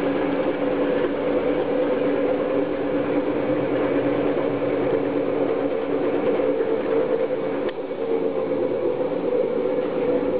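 Homemade magnet-motor rig and its coupled dynamo running at steady speed, giving a continuous whirring hum with two steady tones. A brief dip and a single tick about eight seconds in.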